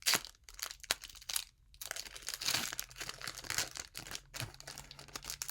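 Foil Pokémon booster pack wrapper crinkling and tearing open by hand, a run of sharp crackles that thickens about two seconds in.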